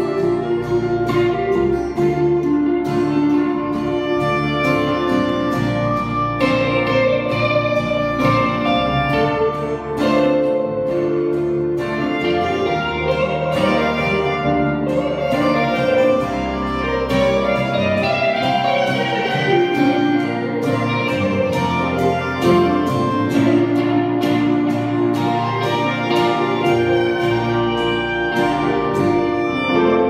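Live folk band playing an instrumental passage: a clarinet carries the melody over a hollow-body electric guitar, a second guitar and an electric bass, with steady strumming underneath.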